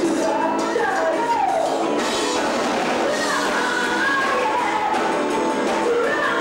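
Live rock band playing: a woman singing lead into a microphone over electric guitars and a drum kit.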